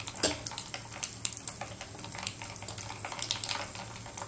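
Cumin and mustard seeds frying in hot oil in a small tempering pan, a steady sizzle with scattered crackles and pops.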